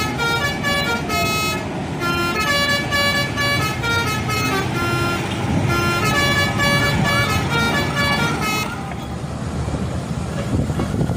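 Bus telolet horn, a multi-trumpet air horn, playing a fast tune of short high notes that step quickly from one pitch to the next, some of them warbling. It stops about eight and a half seconds in, leaving engine and traffic noise.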